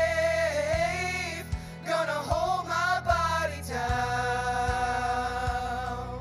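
Worship band with singers holding a long note on the end of a chorus, breaking into a wavering vocal run in the middle before settling on a held chord again. A steady kick-drum beat thumps about every 0.8 seconds beneath.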